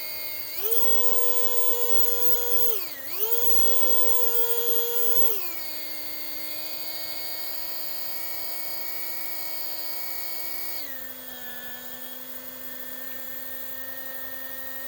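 Tyco 440x2 HO slot car motor whining as the throttle is varied. It steps up in pitch about half a second in, dips and recovers briefly around three seconds, then settles lower about five seconds in and again near eleven seconds. It runs quiet on freshly broken-in, oiled bulkhead bushings.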